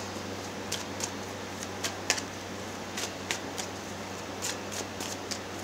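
Steady low background hum, with a dozen or so light clicks and ticks scattered irregularly through it.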